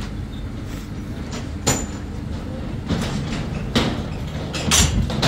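Metal parts of a funfair ride clanking and knocking during dismantling, about five sharp knocks spread through, over a steady low engine running.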